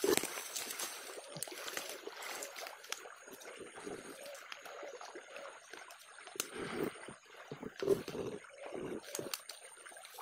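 Fast river water flowing, with irregular rustling and brushing as dry reeds and grass are moved about.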